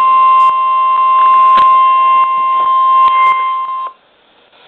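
NOAA Weather Radio warning alarm tone: a single loud, steady high tone, around 1 kHz, from a Midland HH54VP2 handheld weather radio's small speaker. It is broken by a few faint clicks and cuts off suddenly about four seconds in. The tone signals that a warning broadcast, here a severe thunderstorm warning, is about to follow.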